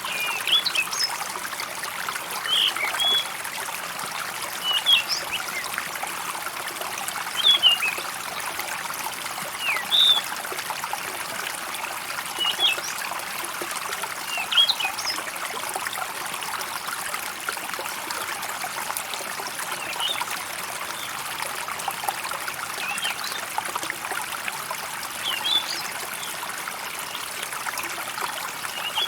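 Stream water trickling and running steadily, with short, high bird chirps breaking in every two seconds or so.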